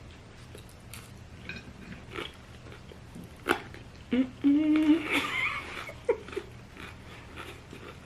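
Potato chips crunched and chewed in sharp crackly clicks, with a short pitched vocal sound, about a second long, a little past halfway through.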